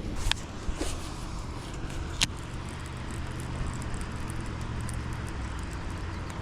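A boat motor running steadily with a low hum, with a few sharp clicks, two of them stronger, in the first couple of seconds.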